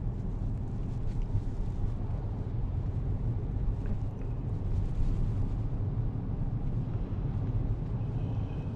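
Steady low vehicle rumble, running evenly without change.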